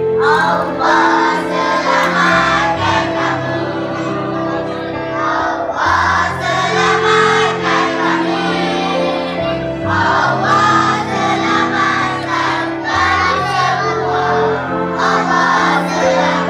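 A song with several voices singing over a backing of held bass and chord notes.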